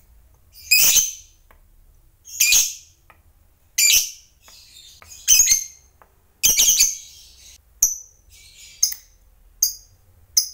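Fischer's lovebird giving a series of harsh, high-pitched calls about every one and a half seconds, then a few shorter, sharper chirps in the last few seconds.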